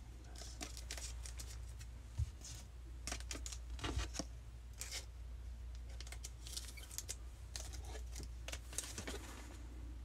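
Light handling sounds of baseball cards and foil pack wrappers: scattered soft rustles and clicks over a steady low hum.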